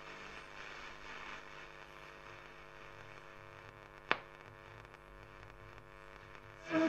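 Graetz Comedia 616 valve radio tuned across the medium-wave band between stations, giving a steady hum and static hiss. A single sharp crackle comes about four seconds in, and a station's audio breaks in at the very end.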